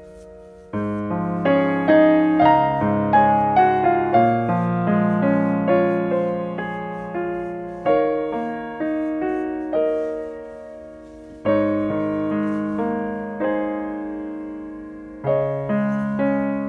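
Background music of slow, gentle solo piano: phrases of struck notes that ring and fade, each new phrase starting with a fresh chord.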